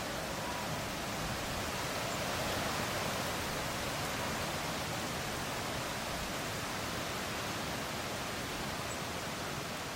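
Strong wind blowing through trees in fresh early-summer leaf, with the leaves and branches rustling against each other as a steady rushing sound that swells a little two or three seconds in.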